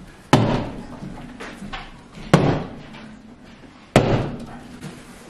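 Three blows of a long-handled hammer smashing into drywall, about two seconds apart, each a sudden crack that trails off as the broken board falls away.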